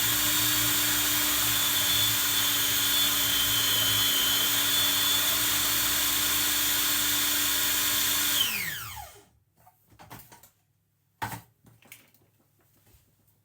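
Food processor motor running at a steady speed while it mixes cake batter. It is switched off about eight and a half seconds in and its pitch falls as it winds down. A few light knocks follow.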